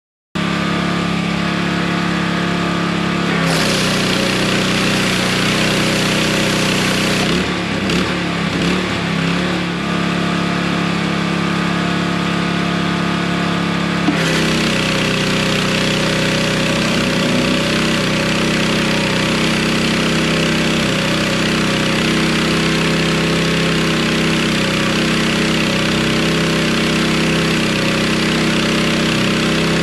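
Pressure washer's small engine running steadily, joined about three seconds in by the loud hiss of high-pressure water spraying through a 15-inch surface cleaner.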